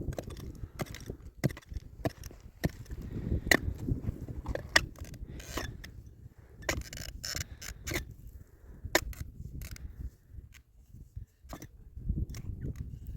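Irregular knocks, clicks and scrapes of hand work, over a low rumbling noise; it briefly goes quieter about ten seconds in.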